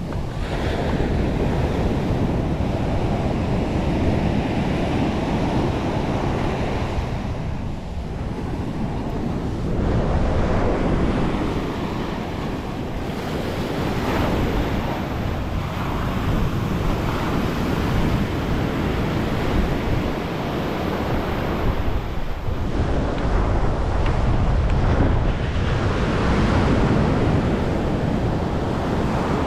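Ocean surf breaking on a sand beach, the noise of the waves swelling and easing every several seconds, with wind buffeting the microphone.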